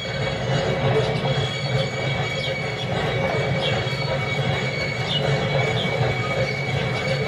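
N gauge model container wagons rolling round a curve on the layout track: a steady rumble with short high wheel squeaks about once a second.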